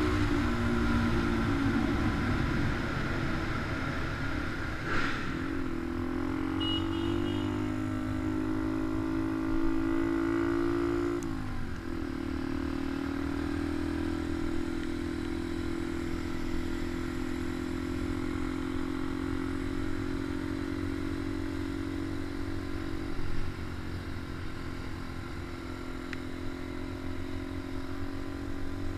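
Small motorcycle engine, a Honda Dax, running under way. Its note climbs slowly, drops sharply at a gear change about eleven seconds in, then holds steady.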